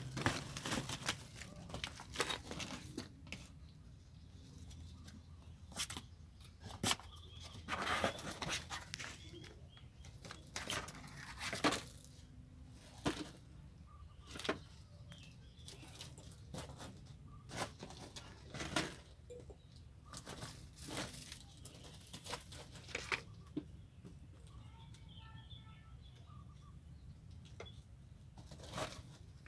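Kittens scrambling about, with irregular rustles and scrapes as their paws and bodies brush the woven plastic tarp and scratch on the concrete floor.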